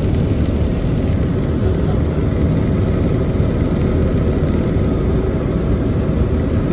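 Airbus helicopter in flight, heard inside the cabin: loud, steady engine and rotor noise.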